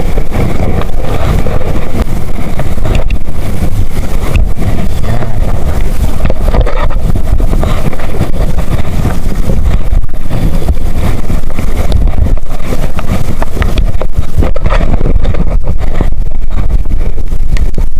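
Loud, steady low rumble of a small boat underway, its motor running with wind buffeting the microphone.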